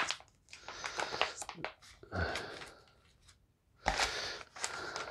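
Crinkling and rustling of a ration heater bag and meal pouch as the pouch is squeezed into the bag. It comes in irregular bursts with a short pause before a louder stretch near the end.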